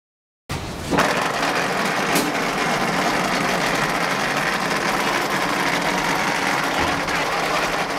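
Automatic wall rendering machine running as it spreads render onto a block wall: a steady mechanical noise that starts suddenly about half a second in. A sharp click sounds about two seconds in.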